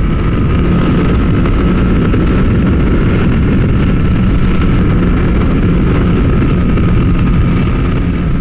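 Kawasaki ZX-10R sportbike's inline-four engine running at a steady cruise, with wind noise over it and no change in speed.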